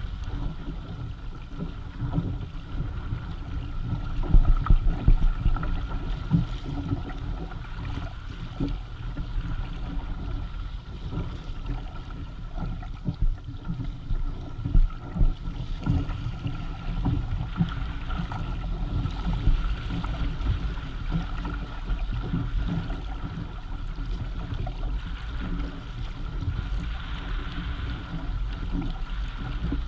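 Water rushing and splashing along the hull and amas of a Hobie Tandem Island sailing kayak moving under sail through choppy water. Wind rumbles on the microphone in uneven gusts, loudest about four to five seconds in and again midway.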